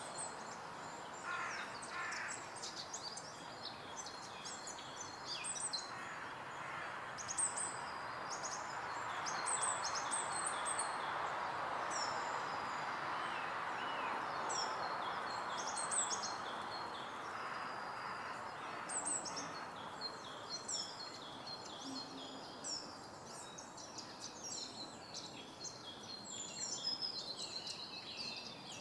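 Woodland birdsong: several small birds chirping and trilling in high short notes throughout, over a steady rush of background noise that swells in the middle.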